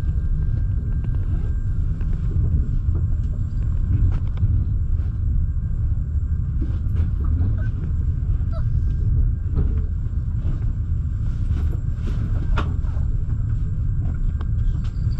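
Steady low rumble of a moving double-deck passenger train, heard from inside the coach, with scattered faint clicks and knocks.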